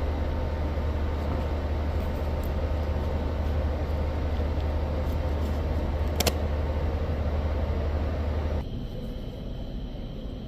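Steady low mechanical hum under an even wash of noise, which cuts off suddenly near the end. There is one sharp click about six seconds in.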